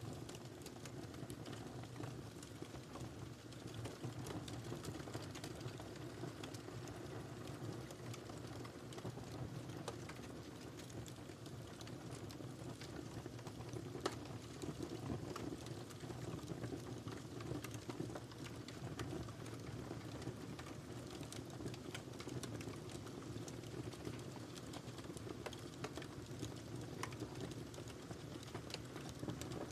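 Wood fire burning in a fireplace: a steady low rush of flames with frequent small crackles and pops, one sharper pop about halfway through.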